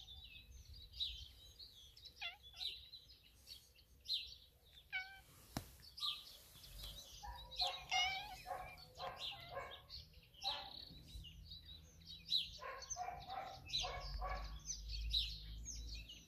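Small birds chirping: many short, high calls overlapping, busiest in the second half.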